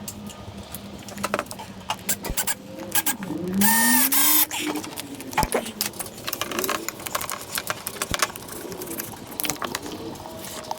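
Cordless driver spinning a screw in for one short run of under a second, about four seconds in, amid scattered clicks and taps.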